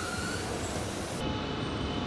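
Steady machinery rumble and hiss of an aircraft assembly floor, with a thin whine over it. The sound changes abruptly about a second in, when a different, higher whine takes over.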